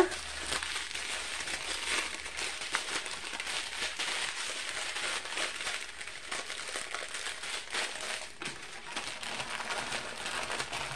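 Small clear plastic bags of diamond-painting drills crinkling as they are handled and moved, a continuous light crackling.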